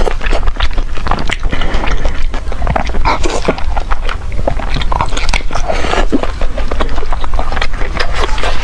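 Close-miked biting and chewing of a spice-coated pork blood sausage in pig-intestine casing: a dense, irregular run of wet mouth clicks and smacks.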